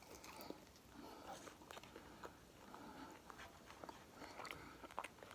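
Faint chewing with small scattered mouth clicks from someone eating chicken wings.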